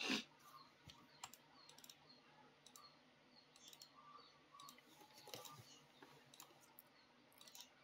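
Near silence: faint room tone with soft scattered clicks, the sharpest one right at the start.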